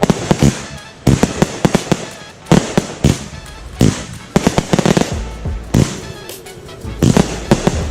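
Fireworks going off in repeated clusters of sharp bangs and crackling, a new volley about every second or so, over background music.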